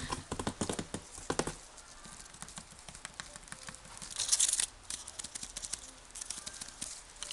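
Toy poodle puppy mouthing artificial flowers and rustling in a wicker basket: a quick run of small clicks and crinkles in the first second and a half, a short rustling burst about four seconds in, then scattered light clicks.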